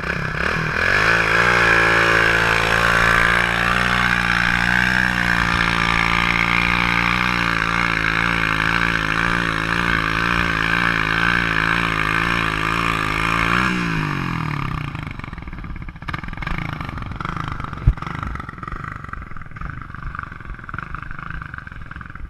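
Dirt bike engines running: a steady drone with small wobbles in pitch, which falls away about fourteen seconds in, leaving quieter, rougher engine running and a single sharp knock near the end.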